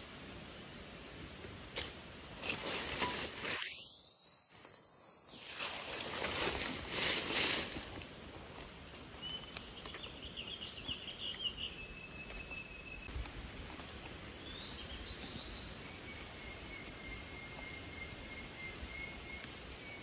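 Rustling and scraping in brush and leaf litter for a few seconds, then quiet forest ambience with a few short, faint bird chirps and a thin, high steady insect-like tone near the end.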